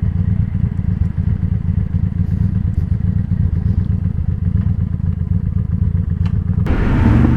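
Honda Shadow Spirit 750's V-twin running at low speed through a Cobra Streetrod Slashdown aftermarket exhaust, a deep steady pulsing note. It gets louder near the end as a rush of noise joins in.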